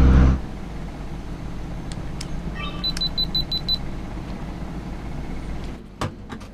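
A 1999 Dodge pickup's diesel engine drones in the cab and is cut off suddenly. About three seconds in, a handheld compact digital camera sounds a short rising chime and then a quick run of about seven high electronic beeps, over a low steady hum.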